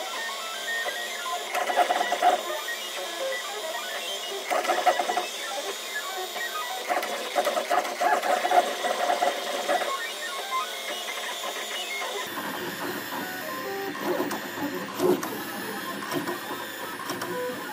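FDM 3D printer printing, its stepper motors whirring and whining in recurring bursts as the print head moves. About twelve seconds in the sound changes abruptly to a different, lower-reaching machine noise.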